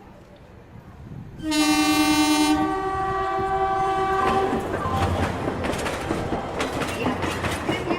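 Train horn sounding one long blast about a second and a half in, lasting nearly three seconds, followed by rapid clickety-clack of wheels running over rail joints as the train passes.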